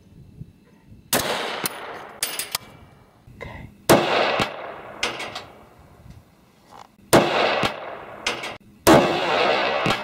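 Four rifle shots from a 6.8 SPC II AR-style hunting rifle, each a sharp crack trailing off over about a second, spaced about two to three seconds apart. Fainter sharp cracks come between them.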